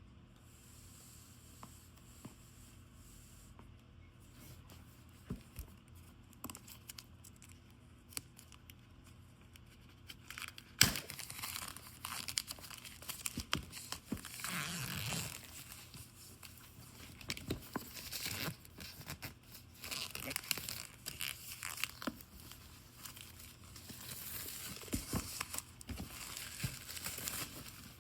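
Packaging being opened: faint handling ticks at first, then a sharp snap about eleven seconds in, followed by irregular rustling, tearing and crinkling of paper and plastic.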